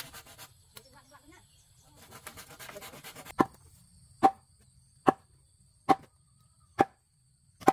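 Six sharp, evenly spaced chopping strikes, a little under a second apart, after a few seconds of soft rustling.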